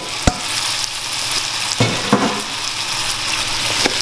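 Uncooked rice sizzling as it fries in a hot pan and is stirred. There is a single sharp knock just after the start, as the metal bowl it was tipped from is tapped against the pan, then a couple of softer thumps midway.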